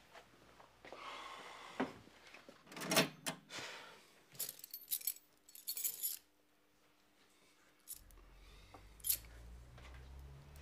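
Small metal objects jingling and clicking, a run of light clicks and rattles over the first six seconds. A low steady hum comes in near the end.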